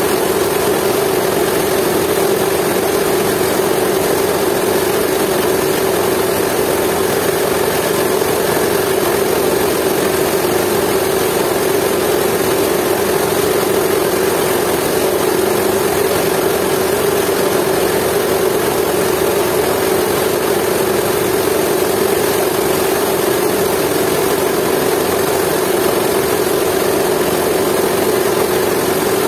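Jiangdong 8 hp single-cylinder diesel engine running steadily, driving a belt-driven mill that grinds dried coffee beans. The engine and mill make one continuous, even racket that does not change.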